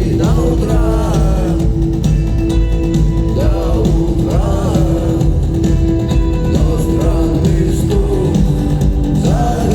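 Rock band playing live, with a sung melody over guitars, bass and drums and a held low note beneath.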